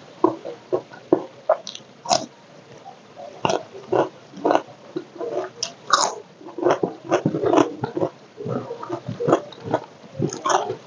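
A person chewing and crunching food close to the microphone: irregular crisp crunches and wet mouth smacks.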